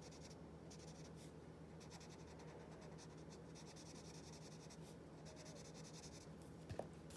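Faint rubbing of a paper blending stump on drawing paper in short strokes, smudging pencil graphite into shading, over a steady low hum. A small knock comes near the end.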